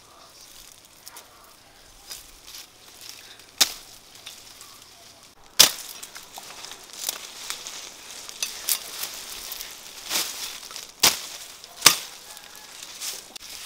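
A machete chopping through the woody stalks of roselle (sour hibiscus) plants: several sharp chops a few seconds apart, the loudest about five and a half seconds in, with leaves and stems rustling in between.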